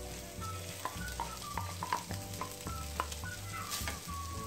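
Boiled rice being scraped with a spatula out of a bowl into a kadhai of hot oil and spices, with a light sizzle and small clicks and scrapes of the spatula against the bowl and pan.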